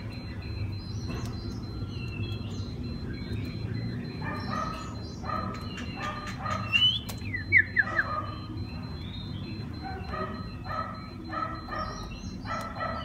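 Oriental magpie-robin calling: runs of short repeated notes, with a few sharp whistled glides about seven seconds in, over a low steady hum.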